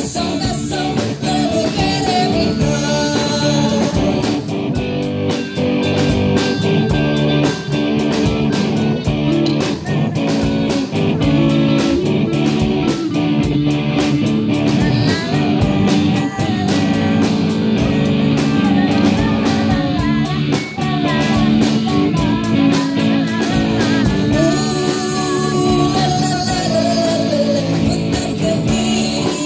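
Live band playing a song: electric guitar and drum kit, with a woman singing into a microphone.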